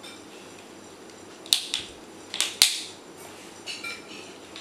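Plastic clips of an HP 250 G4 laptop's screen back cover snapping into place as it is pressed home: several sharp clicks, two a little past a second and a half in, a louder pair around two and a half seconds, and fainter ones near the end.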